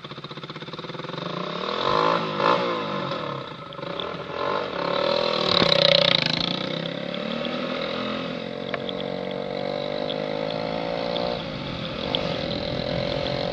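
Motorcycle engine revving and pulling away, with a loud rush of noise about six seconds in, then running steadily under way with its pitch slowly rising as it gathers speed.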